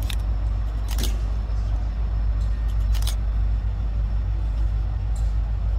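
Diesel locomotives idling with a steady low rumble, with a few faint clicks in the first few seconds.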